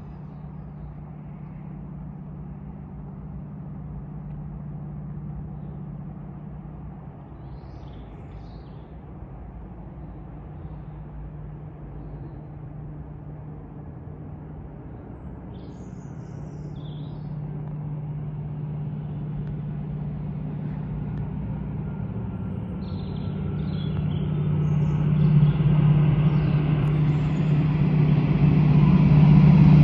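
Class 68 diesel-electric locomotive approaching, its Caterpillar V16 engine drone growing steadily louder through the second half, with rising rail and wheel noise near the end.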